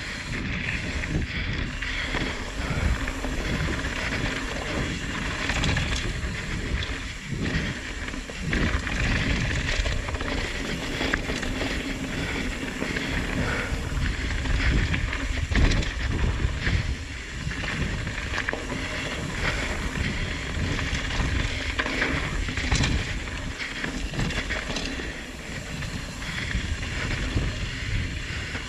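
Downhill mountain bike ridden fast on a dirt trail: wind rushing over the microphone and tyres rumbling on the dirt, with frequent short knocks and rattles from the bike over bumps.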